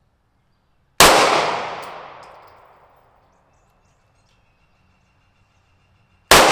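Two single shots from a 9mm semi-automatic pistol, about five seconds apart, each echoing away over about two seconds.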